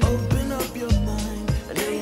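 Background music: a produced song with a steady drum beat and bass notes.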